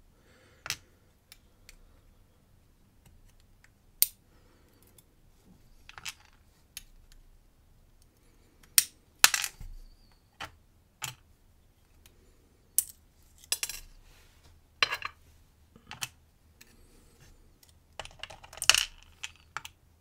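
Irregular small metallic clicks and clinks as brass lock pins are taken out of a cylinder core with tweezers and set down in a plastic pinning tray, with louder clusters about nine seconds in and near the end.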